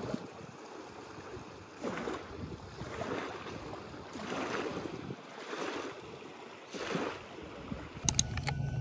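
Small waves washing onto a pebble shore, each wash swelling and fading every second or so. Near the end, a few sharp clicks and then a steady low hum begin.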